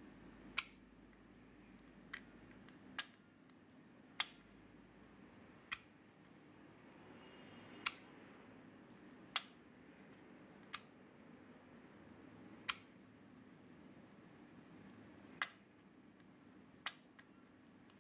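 Relays on a relay-computer multiplexer board clicking as its select inputs are switched by hand. There are about a dozen single sharp clicks at uneven intervals, one every one to two seconds.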